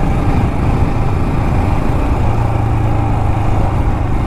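Royal Enfield Himalayan Scram 411's 411 cc single-cylinder engine running at steady revs as the motorcycle is ridden off-road over loose gravel.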